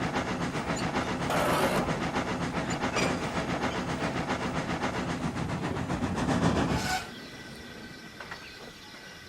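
Steam locomotive running with fast, even chuffs and bursts of steam hiss, stopping abruptly about seven seconds in.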